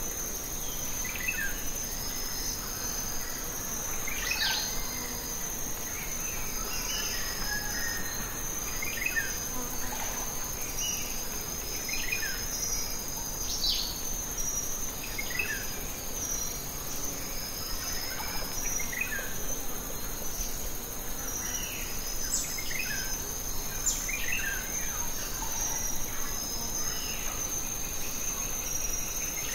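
A steady high-pitched insect chorus, with short falling bird chirps every second or two.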